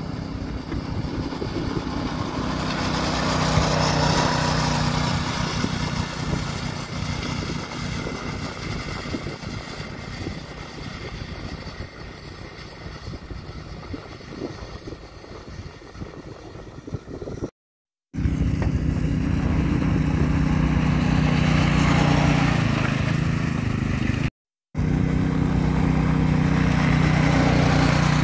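Hammerhead Mudhead 208R buggy's small single-cylinder engine running. It grows louder a few seconds in, then fades away. It cuts out abruptly twice, and between and after the cuts it runs loud and close.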